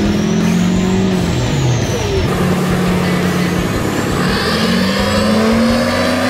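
A truck driving along, then from about two seconds in a Duramax diesel pickup pulls hard on a chassis dyno, blowing black smoke: its engine note rises steadily as it comes up through the revs, with a high turbo whistle climbing over it.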